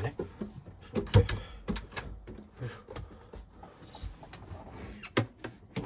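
Scattered knocks and thumps with soft rustling as a person clambers head-first down off a raised camper bed, hands and body bumping the mattress cushions and the wooden step below.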